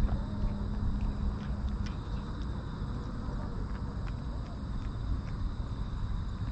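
Kitten eating wet cat food from a stainless steel tray: wet chewing and smacking with many small irregular clicks. Behind it runs a steady high-pitched insect drone and a low rumble.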